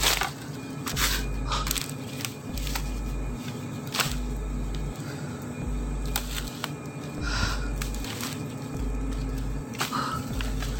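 Low, pulsing background music over a steady drone, beating about once a second. Scattered sharp crackles and clicks, like steps and handling over dry bamboo leaf litter, sound a few times, the loudest near the start and about four seconds in.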